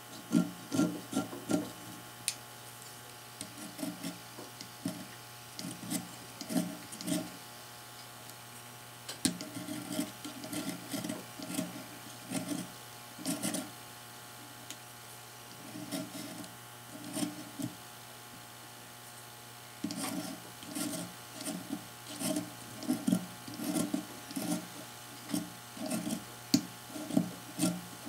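Utility knife blade scraping along the edge of a metal wheel rim, shaving off excess rubber left from vulcanizing the tyre. It goes in quick repeated strokes with sharp clicks, broken by a few short pauses.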